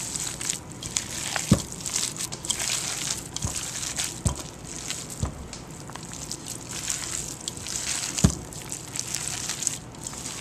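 Hands squishing and mashing a wet raw meatloaf mix of ground beef, egg, chopped bacon, onion and red bell pepper in a bowl, with several dull thumps along the way.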